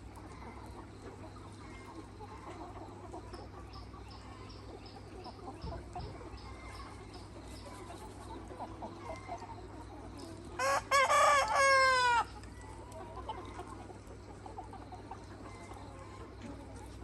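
A Mía rooster crows once, loud and drawn out, its call falling in pitch at the end, about ten seconds in. Hens cluck softly around it.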